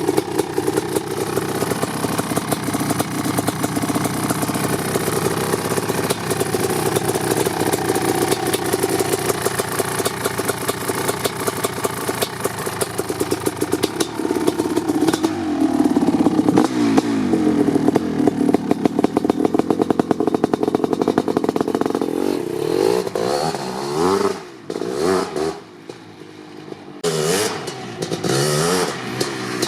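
1988 Kawasaki KX500's single-cylinder two-stroke engine running during its warm-up after a cold start: a steady fast idle, with the throttle blipped several times so the pitch rises and falls. About three quarters of the way in the engine drops low and uneven for a few seconds before it is blipped up again.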